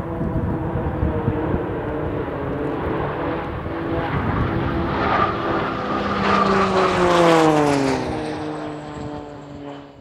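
Pilatus PC-9 turboprop trainers flying past, a drone of several engine and propeller tones over a low rumble. The tones drop in pitch as the aircraft go by, loudest about seven seconds in, then fade near the end.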